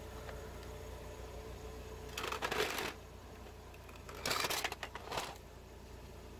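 A hollow plastic toy dog being grabbed and scraped across concrete paving stones. There are two short rough scraping bursts, one about two seconds in and a longer one about four seconds in as the toy is set upright.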